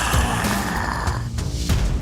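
Background music with a steady bass beat; a noisy high hiss layer drops away about a second in.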